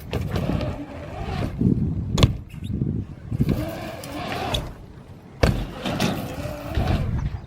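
A BMX bike riding the ramps of a concrete skate park: the tyres hum on the concrete, the pitch rising and falling as the bike speeds up and slows through the transitions, with two sharp knocks of landings or impacts, about two seconds in and again past five seconds.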